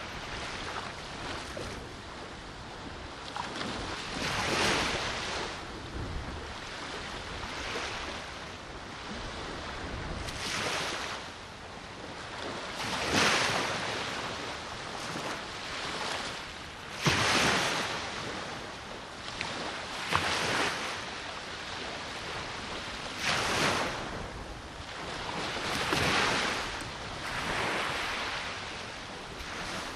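Black Sea waves breaking on the beach, a surging wash every few seconds, with a strong offshore wind on the microphone.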